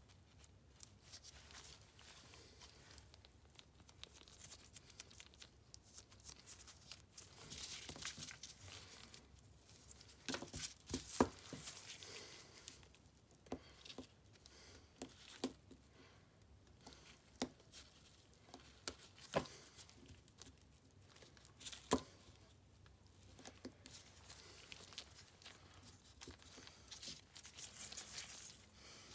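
Dental floss worked between the teeth of a typodont dental model to clear excess glass ionomer sealant. Faint scraping and rustling, with scattered sharp clicks, most of them in the middle of the stretch.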